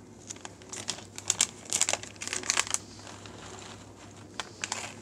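Crinkling and rustling of a paper spice sachet being handled and opened, with irregular crackles and small clicks, busiest in the first three seconds and a few more clicks near the end.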